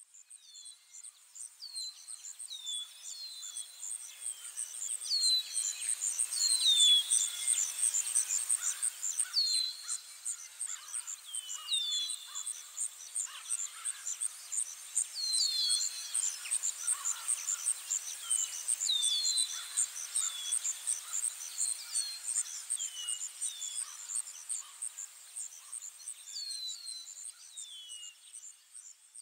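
Birds and insects: a steady, fast-pulsing high insect trill with birds calling short falling chirps again and again over it. The sound swells up over the first few seconds and fades away near the end.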